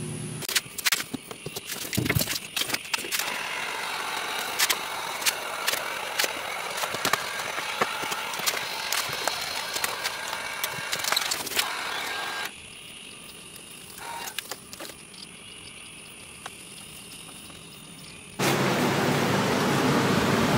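Small clicks, rustling and scraping of hands working vinyl wrap film onto a car door, over a thin steady high whine. Near the end the sound cuts to a louder, steady rushing noise.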